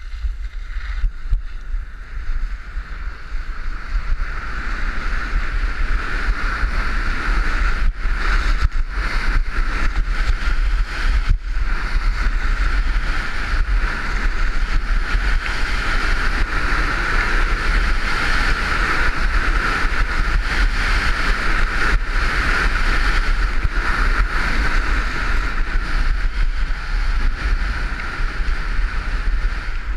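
Wind buffeting a head-mounted camera's microphone during a downhill ski run, with the steady hiss of skis sliding over snow. It builds over the first few seconds as speed picks up, then holds steady.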